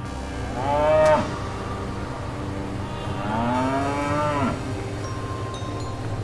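Cow mooing twice: a short call rising in pitch about half a second in, the loudest, then a longer moo about three seconds in that rises and falls. A steady low hum underlies both.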